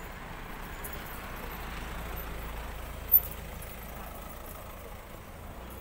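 A motor vehicle passing on the street, its low rumble swelling toward the middle and fading again, with a single sharp click about three seconds in.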